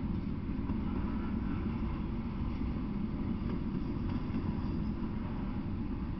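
Double-stack intermodal freight train rolling past, its well cars giving a steady low rumble of wheels on rail.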